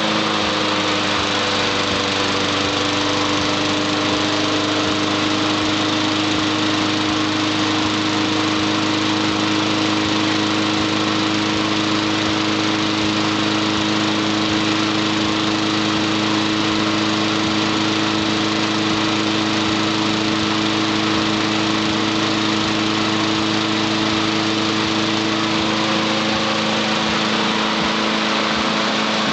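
Craftsman rear-bagging walk-behind lawn mower engine running steadily at a constant speed, just started and settling in the first second.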